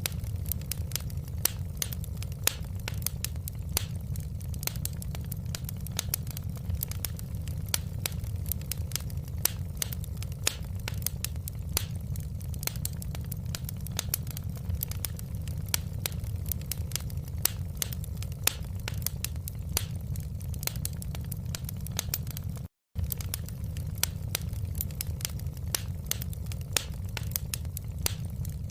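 Wood fire crackling with frequent sharp pops and snaps over a steady low rumble. The sound drops out completely for a split second about 23 seconds in.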